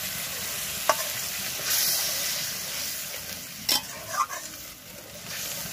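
Spice paste sizzling in hot oil in a metal karai just after a splash of water, while a steel spatula stirs it, with sharp scrapes of the spatula on the pan about a second in and near four seconds in. This is the masala being sautéed (koshano) down before the fish goes in.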